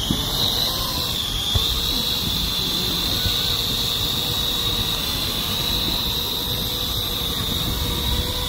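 Parrot AR.Drone quadcopter lifting off and hovering low: a steady high-pitched whine from its four electric motors and propellers, climbing in pitch during the first second as it lifts off and then holding level.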